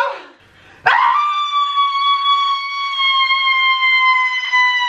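A single long, high wailing cry that swoops up about a second in, holds one note for about four seconds while sagging slightly, then cuts off.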